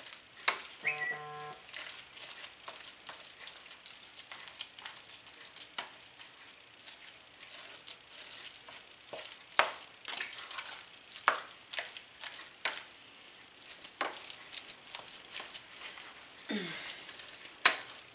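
A plastic spatula stirring and mashing soft roasted sweet potatoes in a stainless steel pot on a hot stove, with irregular scrapes and taps against the pot over a faint sizzle of melting butter. About a second in, a short electronic beep sounds, and near the end the spatula gives one sharp knock on the pot, the loudest sound.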